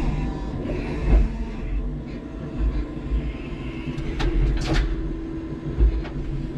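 5-ton electric forklift truck running, heard from inside its cab: a rattling low rumble, a steady motor hum through the middle, and two sharp clacks about half a second apart a little past halfway.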